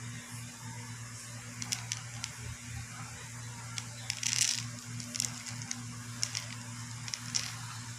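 Light clicks and taps of a plastic supplement bottle being handled and turned in the hands, with a short scrape about four seconds in, over a steady low hum.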